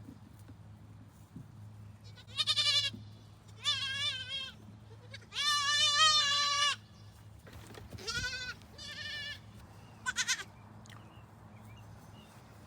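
Goats bleating: about six separate wavering calls, the longest and loudest about halfway through, over a faint steady low hum.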